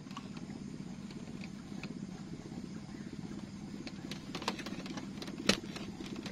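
A small engine running steadily with a fast, even pulse. One sharp click about five and a half seconds in.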